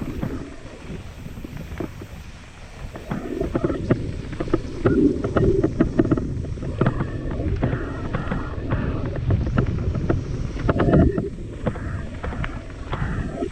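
Wind buffeting the microphone of a mountain bike's onboard camera, with the bike's frame and parts rattling and knocking over rough trail.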